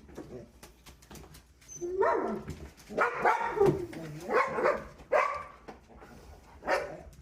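Excited dogs whining and yipping in several short bouts, starting about two seconds in, as they expect to be taken for a walk.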